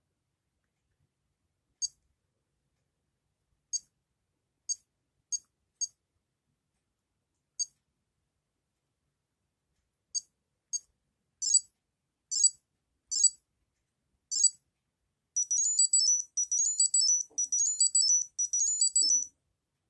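Tamagotchi Meets Pastel Meets' built-in buzzer giving short, high-pitched electronic beeps at irregular intervals, then a few longer chirps, then about four seconds of a quick beeped jingle near the end; the unit is running and responding rather than frozen.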